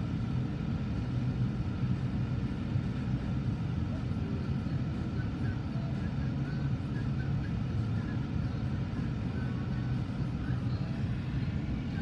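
Manifest freight train cars rolling past: a steady low rumble of steel wheels on rail, with a few faint higher squeaks here and there.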